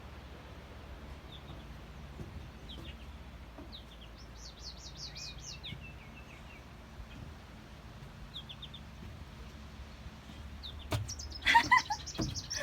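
Songbirds chirping and singing short phrases over a steady low hum. About eleven seconds in come sharp clicks and a loud, harsh pitched call.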